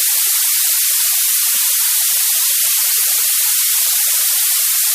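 Steady white noise: an even, unchanging hiss that is brightest in the high treble.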